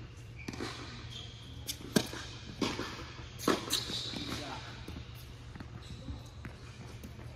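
Tennis ball hit by racquets and bouncing on an indoor hard court during a serve and rally: a series of sharp pops, the loudest about two seconds in, ringing in a large hall.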